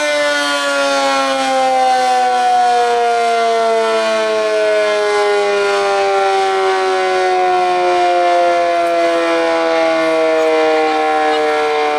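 Sentry 7V8 dual-tone outdoor warning siren winding down after its alert, its chord sliding slowly and steadily lower in pitch as the rotor coasts down. It is a long wind-down.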